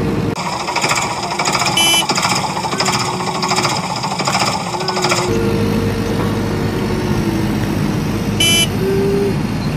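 Vehicle or machine engine noise. For about five seconds it is a fast, rattling, jackhammer-like sound, then it changes abruptly to a steadier engine hum. A short beep sounds about two seconds in and again near the end.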